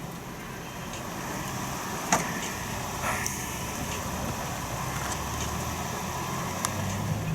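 A motor vehicle running steadily, with a sharp click about two seconds in and a few fainter clicks later.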